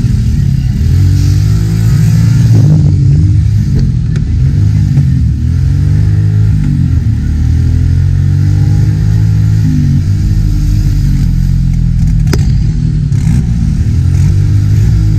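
Mini buggy's engine running close up, its pitch rising and falling repeatedly as the throttle is blipped while it rolls slowly along.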